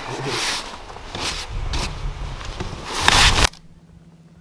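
Snow brush sweeping snow off a car's side window in a run of quick scraping strokes, the last and loudest about three seconds in, cut off suddenly about half a second later.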